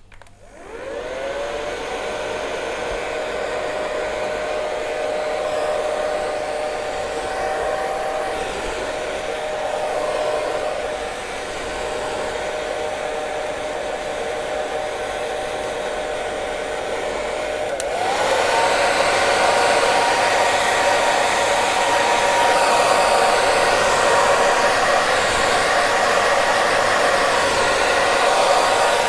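Hair dryer switched on, its motor whine rising to speed within about a second, then running steadily with a rush of air. About 18 seconds in it is switched to a higher speed: the whine steps up in pitch and the sound gets louder.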